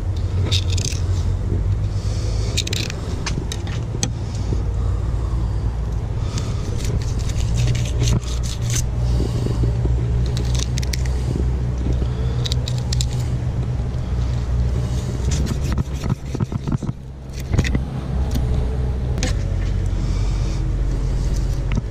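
Fillet knife scraping and slicing through a mangrove snapper's skin, rib bones and flesh in many short strokes, over a steady low rumble.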